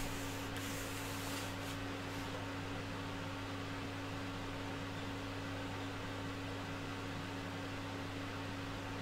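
Steady low hum of background machinery and room tone, with a few faint rustles in the first two seconds.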